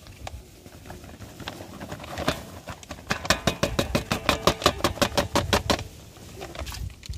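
Paper flour bag held upside down and shaken over a metal basin to empty it, crackling in a fast, even rhythm of about seven shakes a second for nearly three seconds midway.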